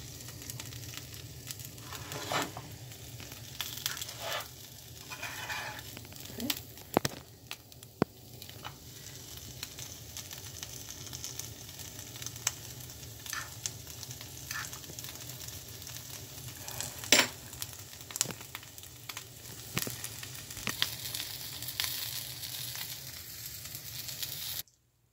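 A flour tortilla pizza frying in butter in a nonstick pan, with a steady sizzle as the cheese melts. Scattered clicks and scrapes of a metal fork against the pan, the sharpest about two-thirds of the way through.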